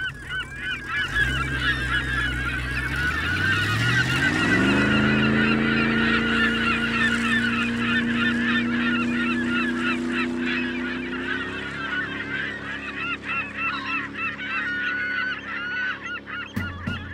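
A dense flock of birds calling, many short overlapping calls at once. A low drone rises in pitch about four seconds in, holds steady, and fades out around twelve seconds.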